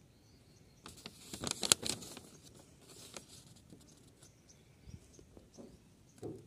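A printed paper invoice rustling and crackling as it is handled, loudest about one to two seconds in, then faint scattered clicks and a few soft thumps.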